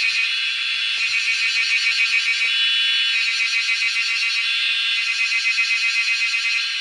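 Cicadas droning in a loud, steady, high-pitched buzz that throbs quickly in loudness.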